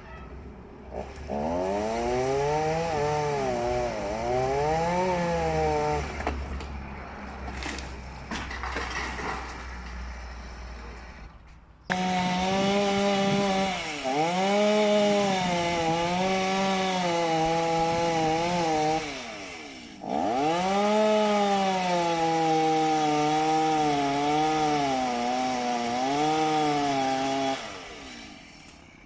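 Two-stroke chainsaw cutting into dead oak, its engine pitch repeatedly dropping and recovering as the chain bogs in the cut. The saw eases off for several seconds in the first half, starts again abruptly, dips once more, and stops near the end.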